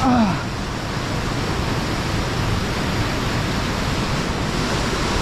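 Steady rushing of falling water from a waterfall.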